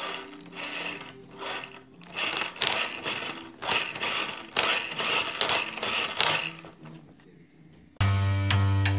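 Axial Wraith RC crawler's axle and drivetrain gears whirring and grinding in a series of short bursts as the wheels turn, over soft background music. Louder guitar music comes in near the end.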